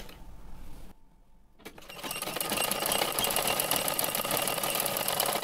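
Black domestic sewing machine stitching a kurta's shoulder seam. A click comes about a second and a half in, and the machine runs fast and steadily from about two seconds in.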